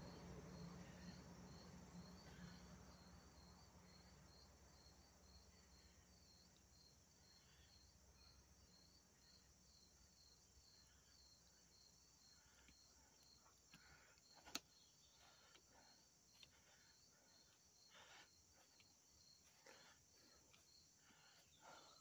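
Near silence with an insect chirping faintly and evenly, about two high chirps a second. A few soft clicks and taps come in the second half, with one sharper tick a little past halfway.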